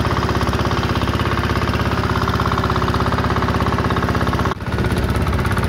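A fishing boat's engine running steadily underway, with an even, rapid pulse; the level dips briefly about four and a half seconds in.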